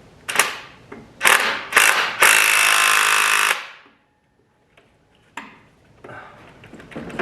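Impact wrench hammering at an engine mount bolt with a standard, non-impact socket: three short trigger bursts, then one longer run of over a second that stops suddenly.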